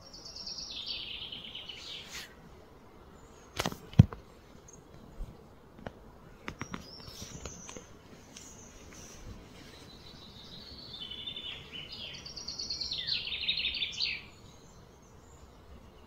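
A songbird sings high, rapidly trilled phrases twice: one descending phrase at the start and a longer run of trills after the middle. In between come a few sharp knocks, the loudest about four seconds in, followed by some lighter clicks.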